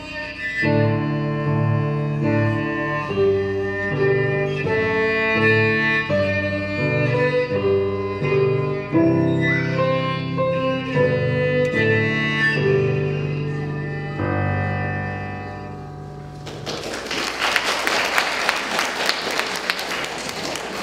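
Electric cello bowed in a slow melody of held notes. The playing stops about sixteen seconds in and applause follows.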